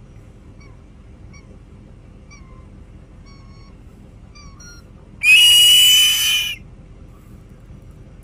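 Bald eagle calling. A series of faint, short, falling chirps comes about every half second, then one loud, high-pitched, slightly falling scream lasts over a second.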